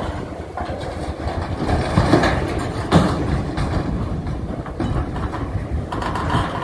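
Steel shipping containers and hull of a capsizing container ship grinding and clattering, a continuous low rumble of metal with two heavy bangs about two and three seconds in.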